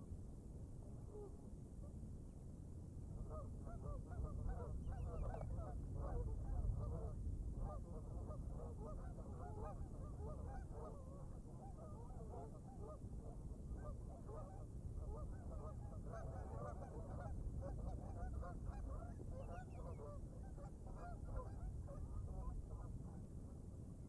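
A flock of waterbirds calling: many short calls overlap in a busy chorus from about three seconds in, over a low steady rumble.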